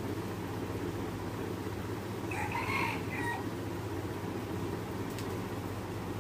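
A short animal call, lasting about a second, about two and a half seconds in, over a steady low hum.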